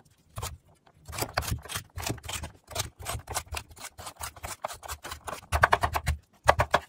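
Chef's knife chopping carrots on a wooden cutting board: a quick, steady run of knife strikes against the wood. The strokes grow louder near the end as a red onion is cut.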